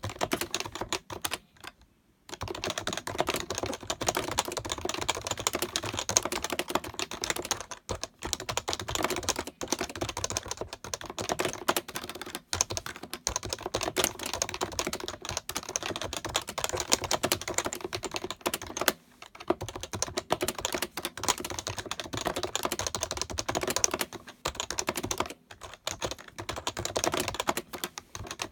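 HHKB (Happy Hacking Keyboard) being typed on rapidly and continuously: a dense run of key presses with a few short pauses, one near the start and two more later on.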